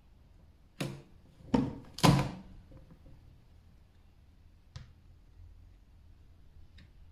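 Three quick knocks in the first two seconds or so, then a faint click near five seconds: handling noise of a stiff vinyl wrap sheet being flexed and positioned against a hard plastic caddy lid.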